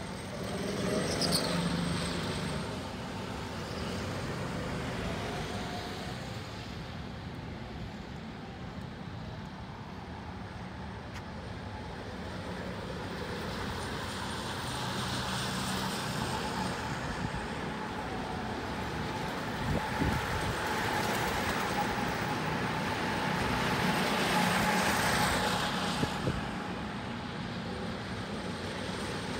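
Go-karts running around a track, their motor noise swelling and fading as they pass.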